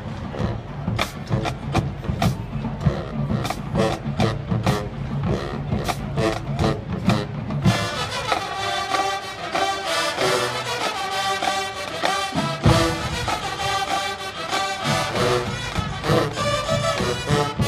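High school marching band playing. For about the first eight seconds the drums beat out a rhythm alone, then the horns come in with sustained chords over the drums.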